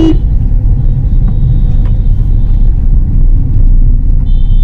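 Steady, loud low rumble of road travel, vehicle engine and wind noise, with a horn blast cutting off right at the start. Faint high-pitched tones sound twice, about a second in and near the end.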